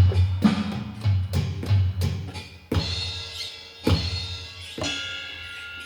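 Donner electronic drum kit being played: a quick run of bass drum and snare hits, then a few cymbal strikes that ring on and fade away near the end.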